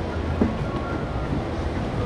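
Steady low rumble of wind on the microphone over the wash of ocean surf, with a brief bump about half a second in.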